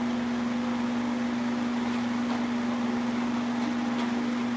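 Electric fan running steadily: an even whir of moving air with a constant hum.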